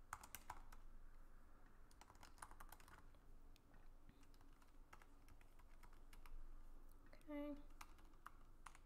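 Faint typing on a computer keyboard: irregular key clicks in short runs, with a brief hum of a voice about seven seconds in.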